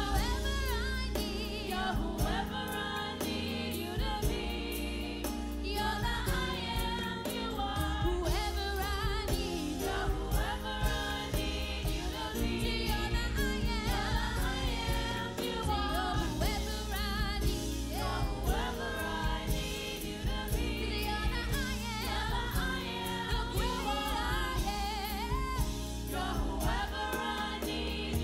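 Gospel music: a choir singing over instrumental backing with a steady bass and beat.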